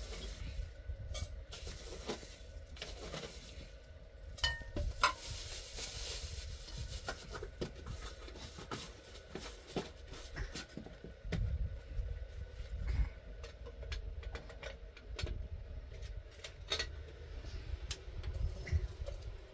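Scattered clinks and knocks of objects being handled, some a little louder, over a steady low rumble.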